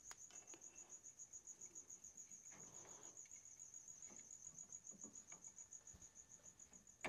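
Near silence: a cricket chirping in a steady high pulsing trill, with a few faint metallic clicks as a brake-shoe spring is worked into place with pliers.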